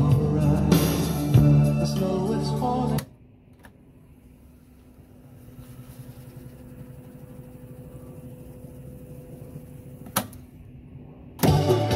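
Music playing back from an Akai GX-210D reel-to-reel tape deck stops abruptly about three seconds in. The reels then fast-wind with a faint steady hum for several seconds, a sharp click of the transport lever comes about ten seconds in, and the music plays again near the end.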